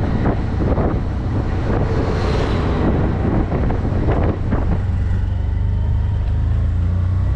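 Auto-rickshaw (tuk-tuk) engine running steadily while driving along, with wind buffeting the microphone in gusts during the first few seconds.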